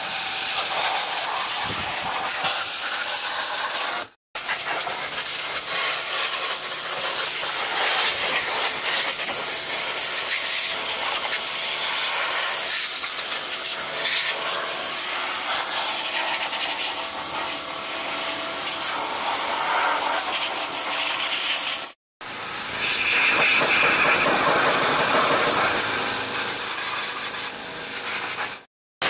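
High-pressure water jet hissing steadily as it is sprayed into a car's wheel arch and underbody. It cuts out briefly three times: about four seconds in, near the 22-second mark, and just before the end.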